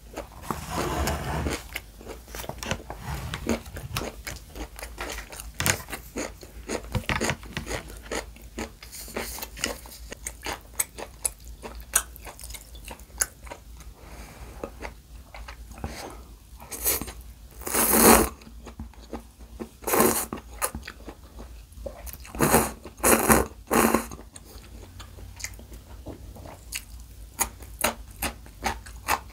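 Close-miked mouth sounds of eating: wet chewing of crunchy vegetable gimbap and cup-noodle glass noodles, with many small clicks. In the second half come several louder slurps, each about half a second long.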